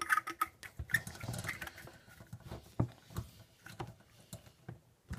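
Metal hose adapter being screwed onto a tap's threaded spout by hand: a run of small clicks and scrapes, densest in the first second.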